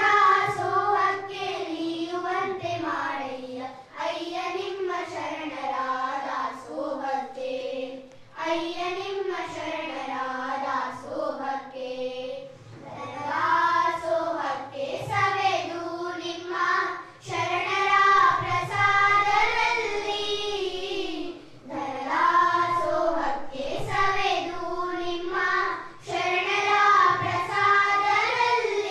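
A group of young schoolgirls singing a song together into a handheld microphone, in phrases of a few seconds separated by short breaths.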